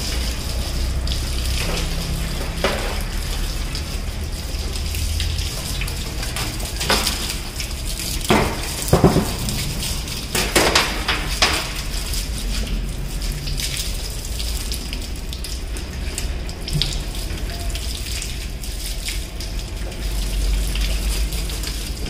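Water from a hose spraying and splashing steadily against the sheet-metal cover of a window air conditioner as it is washed, with a few louder splashes and knocks about halfway through.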